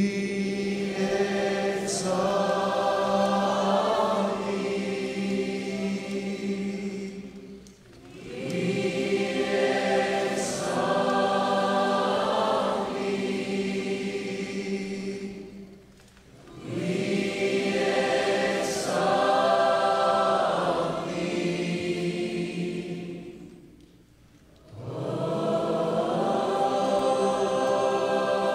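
A congregation of young people singing a worship song together, with no instruments, in four long phrases of about eight seconds each. The singing drops off briefly for breath between the phrases.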